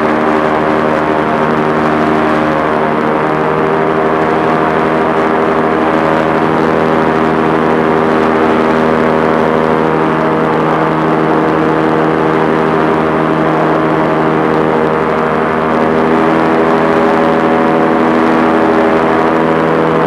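Aircraft engine and propeller running at a steady speed: a constant, even drone.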